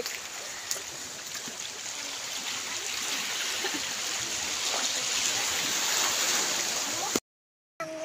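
Small sea waves washing in and draining among shoreline rocks, a steady rushing hiss that slowly grows louder. It drops out for a moment near the end.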